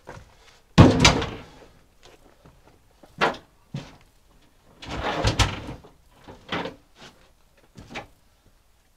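A heavy log round thrown up onto a flatbed truck's bed lands with a loud thud about a second in. Then come scattered knocks and scuffs of boots climbing onto and walking across the bed, and a longer run of wood knocking and scraping on the bed near the middle.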